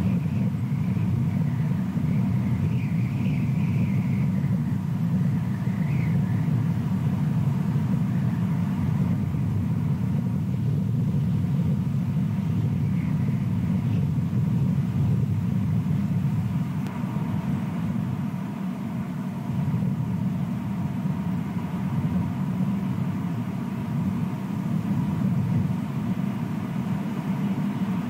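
Steady low outdoor rumble picked up by the nest camera's microphone, with a few faint, wavering high chirps in the first few seconds.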